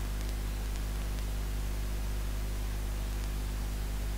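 A steady low electrical hum with a hiss over it, unchanging throughout: background noise of the recording, with no other sound.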